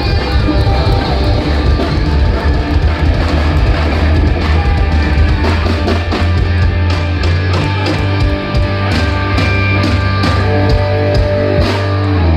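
Live heavy-metal band playing: distorted electric guitars and a sustained low bass over drums, the drum hits coming thicker in the second half.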